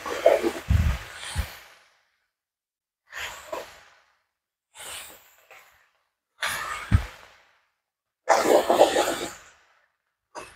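Wooden spatula stirring and scraping a cabbage and potato curry around a metal wok, in about six short bursts with gaps between and a few dull knocks.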